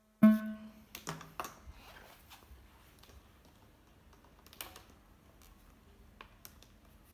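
A brief loud pitched note from the pipe that fades within about half a second, then scattered plastic clicks and knocks as hands handle the PVC pipe and turn its ball valve handle.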